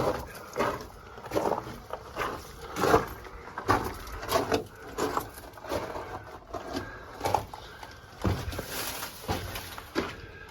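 Footsteps crunching on loose rock and dirt, a short scuffing step about every half second to second.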